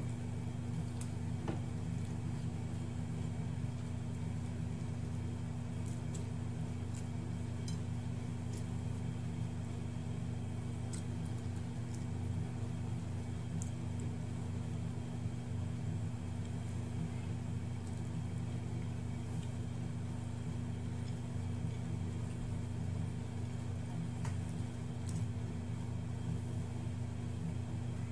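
Steady low hum of a running machine such as a fan or appliance, unchanging throughout, with a few faint small clicks.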